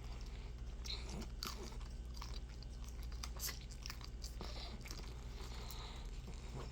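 A person biting and chewing crunchy KFC fried food close to the microphone, with many irregular crunches, over a steady low hum.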